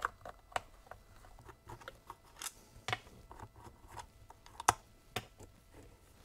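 Scattered light clicks and taps of a screwdriver and small parts against the plastic housing of a Kobalt 80V cordless chainsaw while its side cover is being taken off; the sharpest click comes about two-thirds through.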